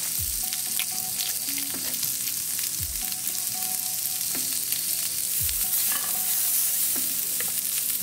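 Asparagus and vegetarian sausages frying in a pan: a steady sizzle with occasional light clicks.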